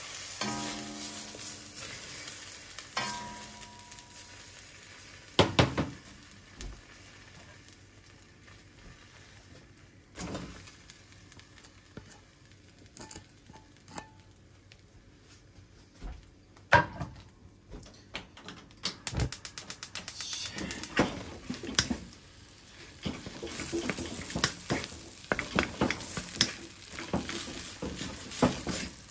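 Beaten egg hitting a hot oiled wok and sizzling, then a few single knocks of a utensil on the wok. In the second half a spatula scrapes and clatters against the wok as the fried rice is stirred and tossed, with quick runs of taps.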